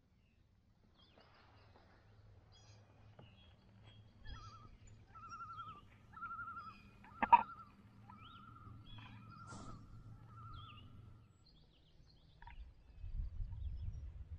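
Faint bird calls over still water: scattered short high calls and a long wavering call through the middle. A single sharp knock about seven seconds in, and a low rumble near the end.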